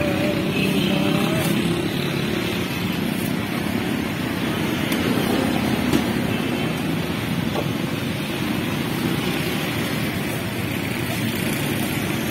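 Steady street noise with motor traffic, including motorcycles, running throughout.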